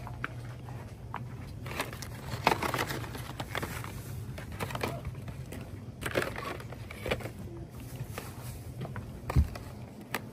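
Blister-packed lighters being handled and pulled from metal pegboard hooks: scattered plastic rustles and clicks over a low steady hum, with one louder thump about nine seconds in.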